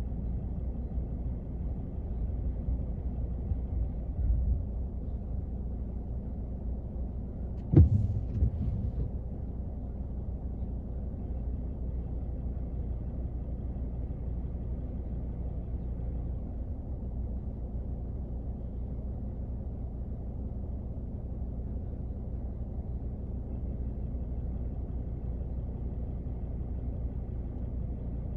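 Rain on a car, heard from inside the cabin as a steady, muffled low patter and hiss. About eight seconds in, one sharp loud crack is followed by a short low rumble.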